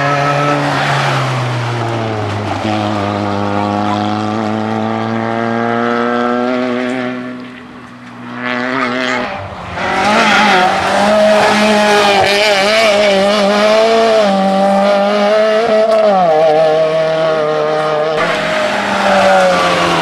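Rally car engines. One engine drops in revs and fades to its quietest around eight seconds in. Then another car's engine comes in louder and stays at high revs, its pitch stepping down twice at gear changes as it gets closer.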